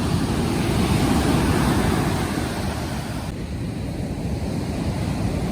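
Surf breaking on a beach with wind buffeting the microphone; the hiss of the wash thins out about three seconds in.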